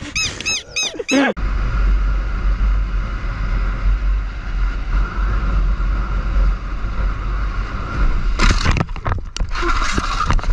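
Motorcycle riding in traffic, heard from an onboard camera as a steady rumble of road and wind noise. From about eight and a half seconds in, loud sudden bursts of crash noise as the bike is struck by a car and goes down onto the road.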